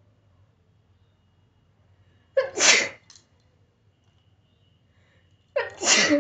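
A woman sneezing twice, about three seconds apart. Each sneeze is a short intake followed by a loud, explosive burst, set off by a pinch of snuff taken up the nose.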